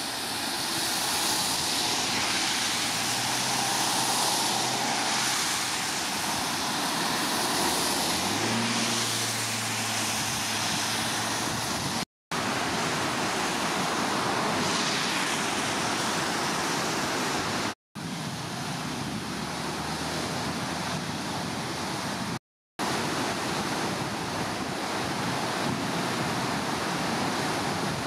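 Cars driving past on a wet road, with tyre hiss and engine hum over a steady rush of wind and water. About twelve seconds in this gives way to a flooding river rushing hard, which cuts out to silence for a moment three times.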